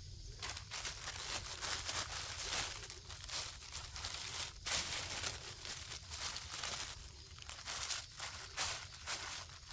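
Dry straw and black plastic mulch film rustling and crinkling as they are handled by hand, in an irregular, continuous run of scratchy noise.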